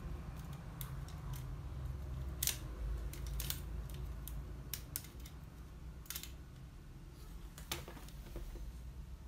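Scattered sharp clicks and light knocks of plastic and metal parts as an HP LaserJet 5200 fuser assembly is handled and worked apart, about a dozen at irregular intervals, over a low steady hum.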